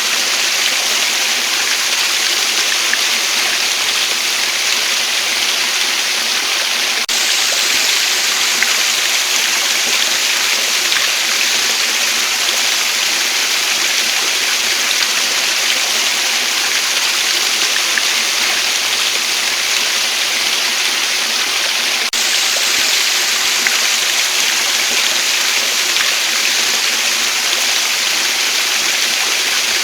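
Waterfall: water pouring and splashing in a steady, even rush, with most of its sound in a bright hiss and little low rumble.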